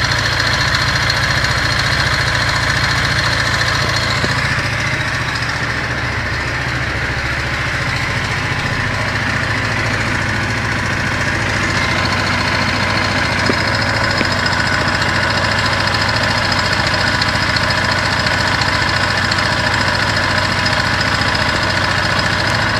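Kymco Quannon motorcycle's single-cylinder four-stroke engine idling steadily with an abnormal noise, the kind that shows up only once the engine is warm. The sound dips slightly for several seconds near the start, then settles back.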